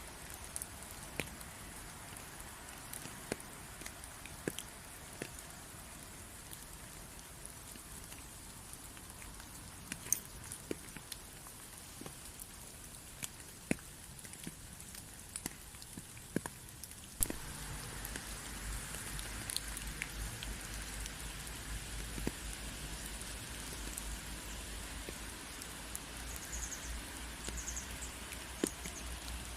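Rain: a soft steady hiss with scattered single drops ticking sharply on a surface. About halfway through, the rain turns louder, with a low rumble underneath.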